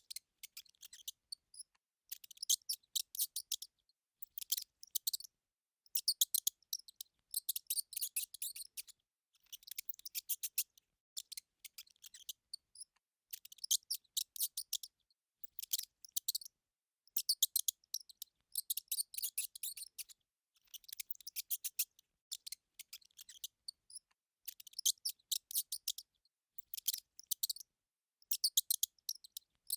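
A mouse making rapid trains of short, high-pitched chirps and clicks, in bouts of about a second separated by brief pauses.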